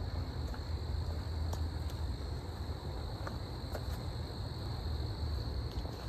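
Crickets trilling steadily, one continuous high unbroken note, over a low rumble.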